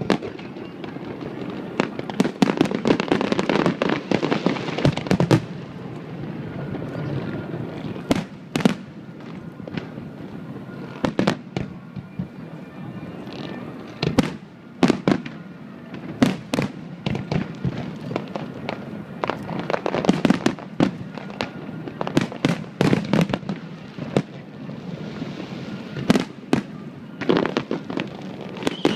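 Fireworks bursting overhead: a long run of sharp bangs at irregular intervals, some in quick clusters, over a steady crackle and rumble, densest in the first few seconds and again toward the end.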